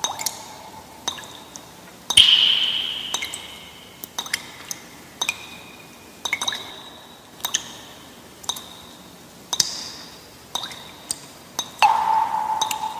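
Dripping sound effect: sharp drops fall about once a second, each with an echoing tail. A louder, ringing plink comes about two seconds in and a lower one near the end.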